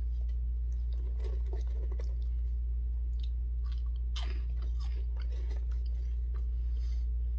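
Crunchy chewing of cheese puffs close to the microphone, in two bouts: one about a second in and a stronger one about four seconds in. A steady low hum runs underneath.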